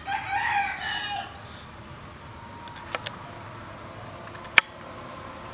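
A rooster crows once, a call of about a second at the start. Then a knife knocks a few times on a wooden chopping board, twice close together about three seconds in and once sharply, the loudest sound, near the end.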